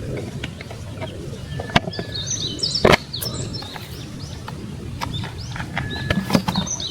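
Small birds chirping outdoors, with scattered sharp clicks and knocks from handling, the loudest knock about three seconds in, over a steady low background rumble.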